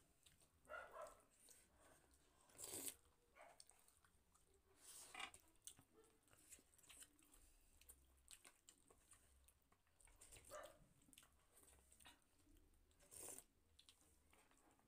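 Faint eating sounds: chewing and slurping of chicken noodle soup eaten from a spoon, in a few short separate sounds spread a few seconds apart.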